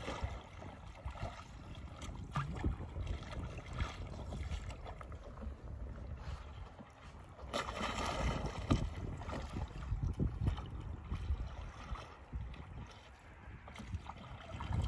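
Water splashing and sloshing as a capsized Rebel Ilaga sea kayak is rolled back upright with the paddle. The biggest splash comes about eight seconds in. Wind rumbles on the microphone throughout.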